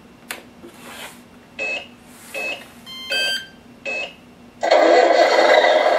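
Tamiya MFC sound unit in a 1/14 RC truck switching on: a click, a few short electronic beeps and chirps from its speaker, then about three-quarters of the way in the simulated truck engine sound comes on loud and runs steadily.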